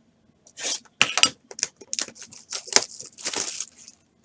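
Sealed trading-card box being opened by hand: a quick run of sharp clicks and scrapes of cardboard, with plastic wrap crinkling and tearing.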